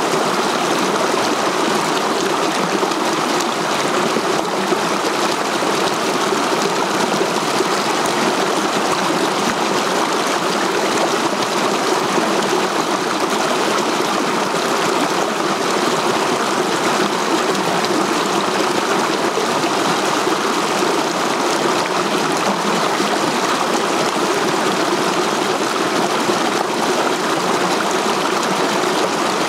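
Mountain stream rushing and splashing over boulders in small cascades: a steady, unbroken roar of running water.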